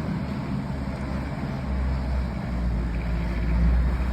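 1962 Mercedes-Benz 190D's four-cylinder diesel engine running steadily as the car is driven: a low, even rumble.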